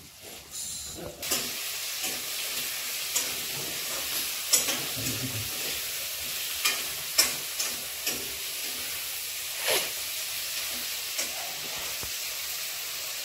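A steady hiss with scattered light clicks and taps from paneer and capsicum pieces being handled and threaded onto skewers in a metal bowl.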